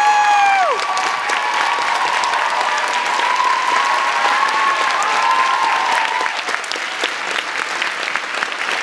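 Large audience applauding steadily, with high 'woo' cheers rising and falling over the clapping, the strongest in the first second.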